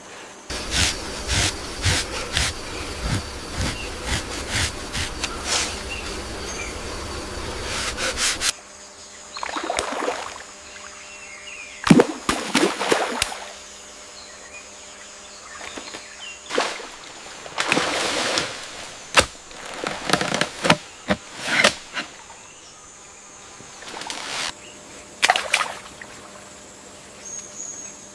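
Water splashing and sloshing: a dense run of splashes for about the first eight seconds, then separate splashes every second or two, over a faint steady hum.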